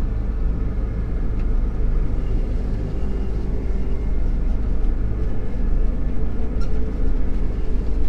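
Combine harvester running while harvesting wheat, heard from inside its cab: a steady drone of the engine and threshing machinery.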